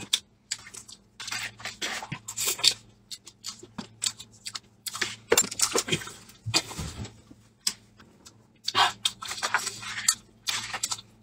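Shell of a boiled balut egg being cracked and picked off by fingers: a run of short, irregular crackles and clicks, with close-up biting and chewing of the egg between them.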